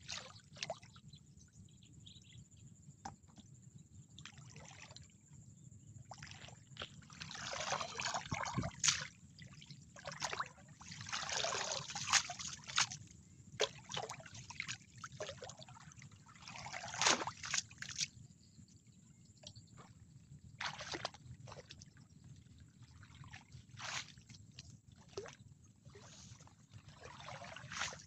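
Shallow, muddy water splashing and sloshing in irregular bursts as a hand-held scoop net is worked through it, with scattered small clicks and drips.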